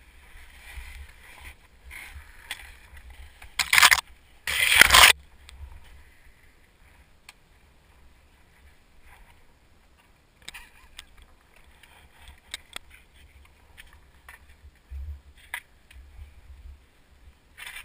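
Telemark skis sliding and scraping through snow on a steep descent, with two loud scraping hisses about four and five seconds in, then quieter sliding with scattered small clicks and knocks.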